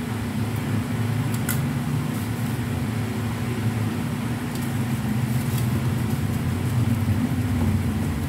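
Steady low hum of a running electric motor, with a few faint clicks.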